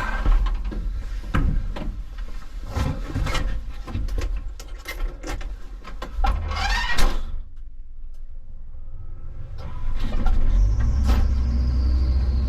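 Knocks and clatter of getting into a Hitachi 160 excavator's cab and working the key. About ten seconds in, its diesel engine starts and settles into a steady low rumble.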